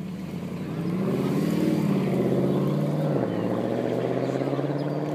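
Helicopter passing overhead: its engine and rotor sound grows louder, then drops in pitch about three seconds in as it goes by and begins to fade.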